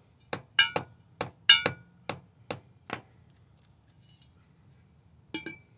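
Claw hammer striking the nut-capped steel anchor bolts set in concrete: about ten quick, ringing metal-on-metal blows in the first three seconds, then a short pause and two or three more near the end. The bolts are being knocked sideways to line up with the holes of a railing post's base plate.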